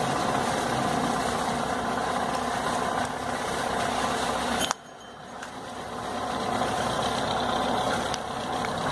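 A steady engine-like running noise that drops away suddenly about halfway through, then builds back up over the next couple of seconds.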